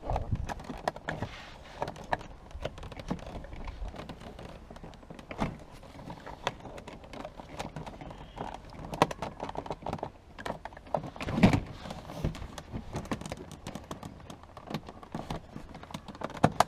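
Irregular small clicks, taps and knocks of hard plastic being handled and pried, as the housing of a car's window master switch is taken apart, with one louder knock about two-thirds of the way through.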